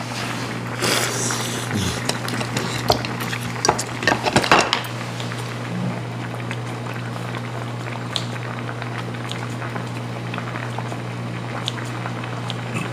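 Spoons and chopsticks clinking against bowls and plates, a cluster of sharp clicks and knocks in the first five seconds, then only a few, over a steady low hum.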